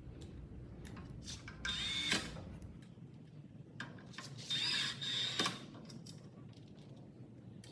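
Power drill/driver running in two short bursts, the first about half a second long and the second about a second long, a little under two seconds and about four and a half seconds in. It is driving screws to mount a drawer handle, with light clicks of handling in between.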